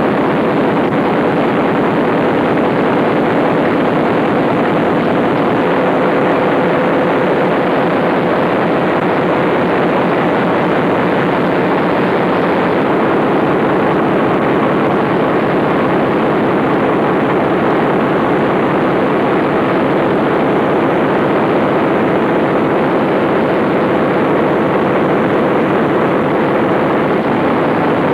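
Fairbanks Morse diesel generator engine running steadily under power-plant duty, a loud, even, unchanging drone.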